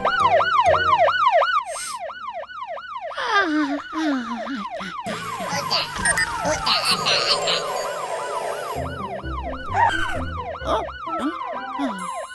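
Cartoon alarm siren sounding in a fast up-and-down yelp, about three to four wails a second, set off by a big red button.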